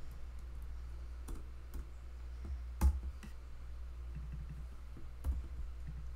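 A few sharp, separate computer mouse and keyboard clicks, the loudest about three seconds in, as a text box is clicked into and a dollar sign is typed. A steady low hum runs underneath.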